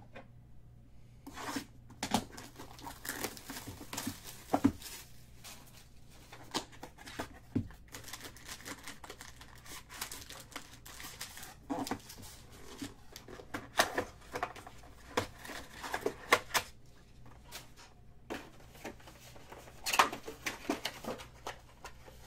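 Plastic wrapping on a box of trading cards being torn and crinkled, in irregular crackles, while the card packs inside are handled.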